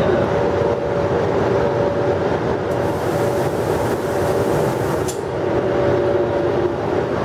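FS class E.652 electric locomotive passing slowly at the head of a train of tank wagons, its traction equipment and cooling fans giving a steady hum with a high whine. A hiss rises a little before the middle and cuts off sharply about two seconds later.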